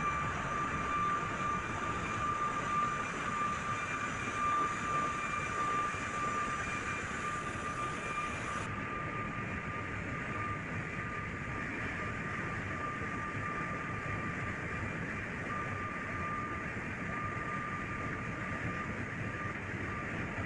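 Ship's engine-room machinery running steadily: a dense, even mechanical din with a high, steady whine running through it. About nine seconds in, the upper hiss drops away and the din carries on.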